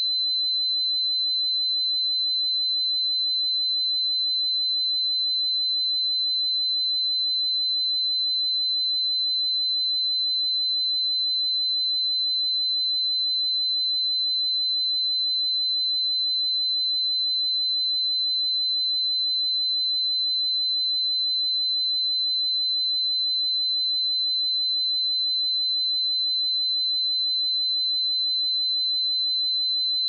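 A pure 4047 Hz sine-wave test tone, one steady high-pitched tone at constant level, with no other sound.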